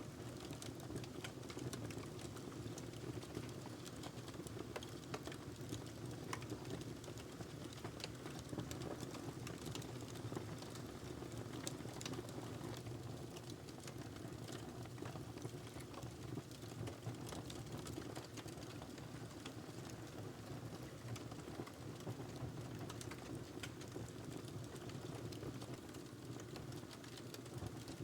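Wood fire crackling in a fireplace: many small, irregular pops and snaps over a steady low background of the burning fire.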